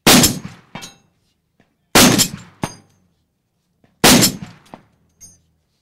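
Barrett .50 BMG rifle fitted with a muzzle brake, fired three times about two seconds apart. Each shot is a big boom that trails off, and a fainter sharp crack follows each one under a second later.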